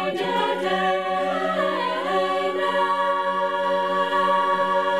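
Mixed-voice student choir singing a cappella, the voices moving for the first couple of seconds, then settling into a long held chord.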